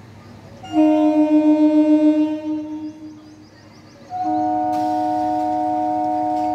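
Electric local train (EMU) horn sounding two blasts. The first lasts about two seconds, wavering and fading out. After a short gap a steady, loud second blast begins and carries on past the end.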